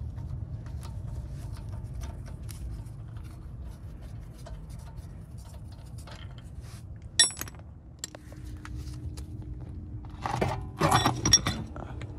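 Metal clicks, clinks and scrapes of a socket wrench and lug nuts as the lug nuts are undone from a steel front wheel, with one sharp clank about seven seconds in and a burst of clattering near the end, over a low steady rumble.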